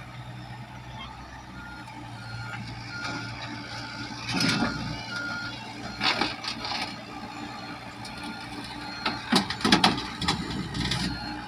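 A Komatsu PC70 excavator's engine runs steadily while its travel alarm gives about five short, high beeps in the first half. Several loud metallic clanks and knocks come from the machine in the middle and near the end.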